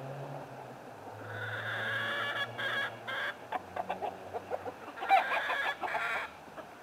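Backyard chickens clucking and calling: two drawn-out calls, about a second in and again about five seconds in, with a run of short clucks between.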